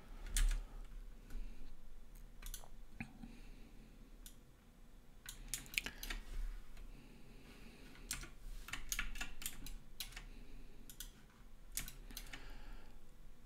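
Computer keyboard keys and mouse buttons clicking in irregular short runs, over a steady low hum.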